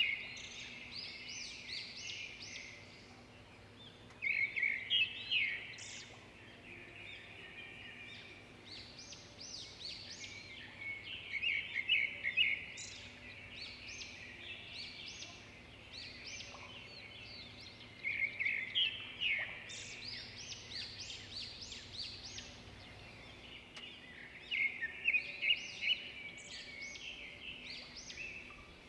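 Small birds chirping and twittering in quick clusters that come and go every few seconds, over a faint steady hum.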